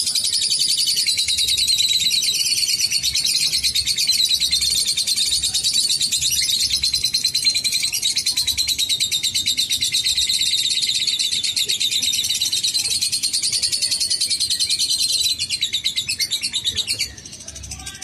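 Lovebird giving a long ngekek: a loud, very rapid, unbroken chattering trill that runs for about fifteen seconds. It then breaks into a few shorter bursts and stops about a second before the end.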